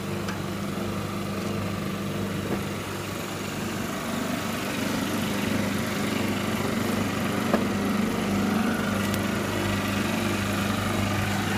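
Refrigerant recovery machine running with a steady low hum as it draws the refrigerant charge out of the refrigeration system.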